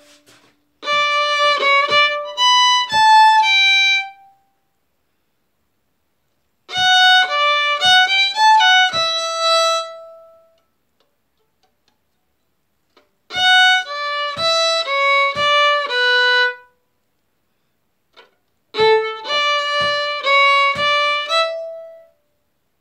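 Solo fiddle (violin) bowing four short phrases of the B part of a folk tune in 3/2 time, each phrase about three to four seconds long, with silent pauses between them.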